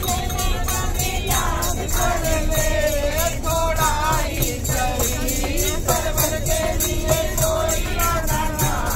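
Voices singing a devotional song over a fast, steady beat of clapping and jingling percussion, with a low rumble underneath.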